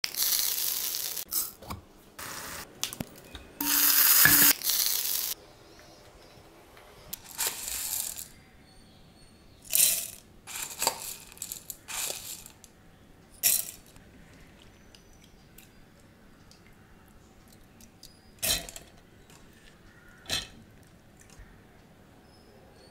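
Black peppercorns and soaked urad dal dropped into a stainless-steel mixer-grinder jar, clattering against the metal. The clatter is loudest in the first five seconds, then comes in short separate bursts.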